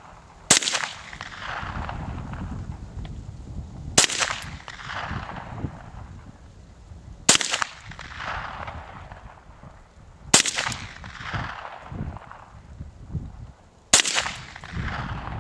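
Five slow, single shots from a Hi Point 4595 TS .45 ACP carbine, three to four seconds apart, each followed by a long rolling echo.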